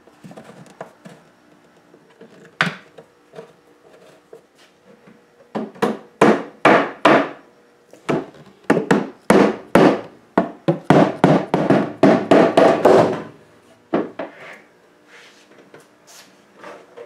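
Hammer knocking on the wooden desk. A few light knocks come first, then from about five seconds in a fast run of hard blows, two to three a second, for about eight seconds, then a few lighter taps.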